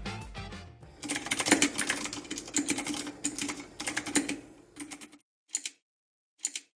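Rapid typing on an all-aluminum mechanical keyboard with aluminum keycaps: a fast run of key clicks for about four seconds, then two single keystrokes near the end. Background music fades out in the first second.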